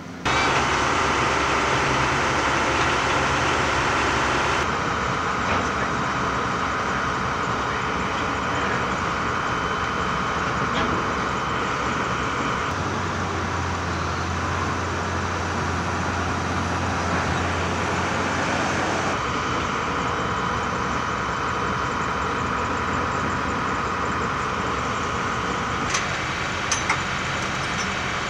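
Heavy diesel machinery running steadily: a tracked excavator and a rock crusher at work. The sound changes abruptly about every five to seven seconds, with a few sharp clicks near the end.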